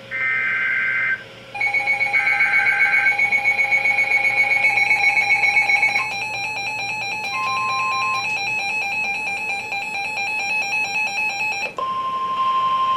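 NOAA Weather Radio alert sequence: the shrill two-tone SAME digital header bursts repeat, with a weather alert radio's pulsing beep alarm sounding over them, then the steady 1050 Hz warning alarm tone starts about twelve seconds in, announcing the next warning.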